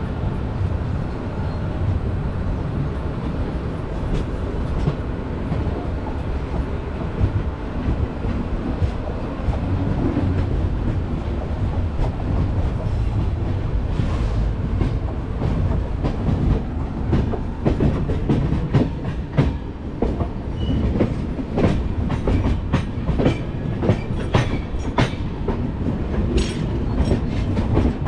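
Moving passenger train, heard from aboard: a steady running rumble of the coach on the track. From about halfway in, the wheels clack sharply and often over rail joints.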